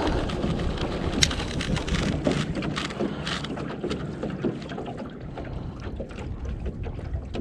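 Wind rumbling on the microphone, with scattered light clicks and ticks throughout.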